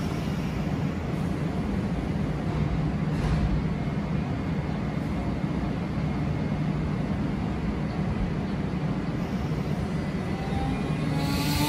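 A Shin-Keisei Line electric train standing at the platform hums steadily as its onboard equipment runs. Near the end a short hiss comes, and the traction motors begin a rising whine as the train starts to pull away.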